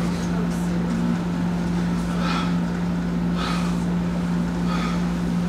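A steady low hum over a constant background noise, with a few soft, brief rustles.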